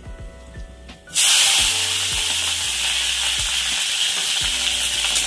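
Curry leaves and green chillies dropped into hot oil in a kadai over a panch phoron tempering. About a second in, a sudden loud sizzle starts and carries on steadily.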